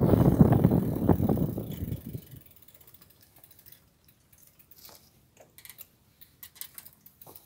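Wind and tyre rumble from a moving bicycle, fading away over the first two seconds or so as the bike slows. After that it is quiet except for the light, irregular ticking of the bicycle's freewheel pawls while coasting.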